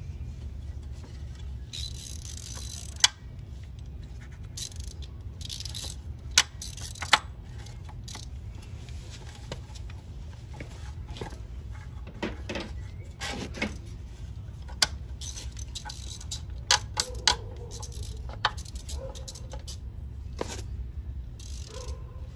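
Scattered small metal clinks, ticks and scrapes as the front axle nut is spun off by hand and the axle is worked out of the fork, with a few sharper clicks, over a steady low background rumble.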